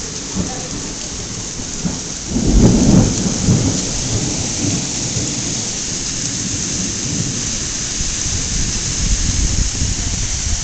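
Heavy thunderstorm downpour hissing steadily, with a low rumble of thunder swelling about two seconds in.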